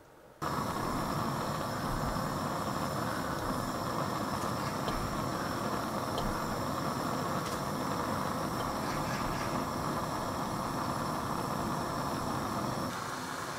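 Steady rushing noise at a gas stove, starting suddenly and easing a little near the end, with a few faint ticks as cherry tomatoes go into a pan of water.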